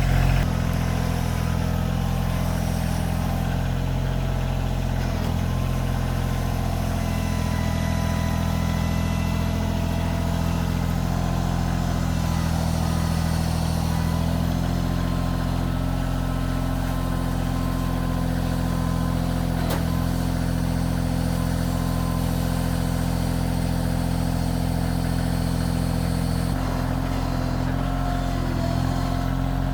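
Kioti CK2610 compact tractor's three-cylinder diesel engine running steadily under the grapple work, with a slight change in its note about halfway through and again near the end.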